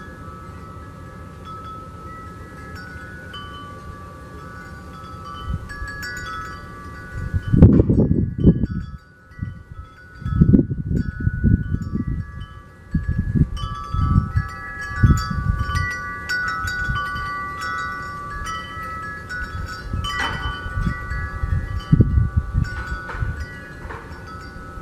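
Wind chimes ringing, several overlapping tones sounding and dying away one after another. Irregular bursts of low rumbling noise come and go, loudest about a third of the way in.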